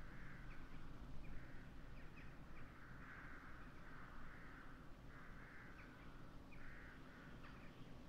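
Crows cawing: a string of faint, harsh caws about one a second, over a low wind rumble.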